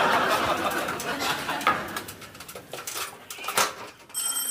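Studio audience laughter dying away, followed by scattered metallic clanks and knocks as an aluminium stepladder is handled. A steady high ringing tone starts just before the end.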